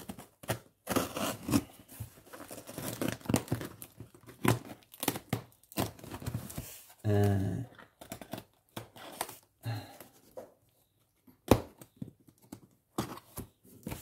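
Packing tape on a cardboard box being slit with a craft knife and the box torn open: a run of irregular scrapes, rips and crinkles of tape and cardboard, with a brief low hum about halfway through.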